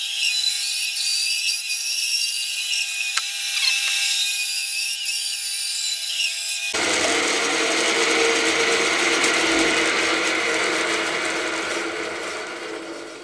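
Bandsaw cutting through a thick, wet oak bowl blank, heard as a continuous mechanical cutting noise on footage sped up eight times. For the first half the sound is thin and high with a steady tone. After about seven seconds it grows fuller and lower, then fades out near the end.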